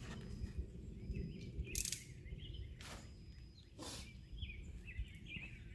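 Small birds chirping in short scattered calls over a steady low background rumble, with a few brief rustles.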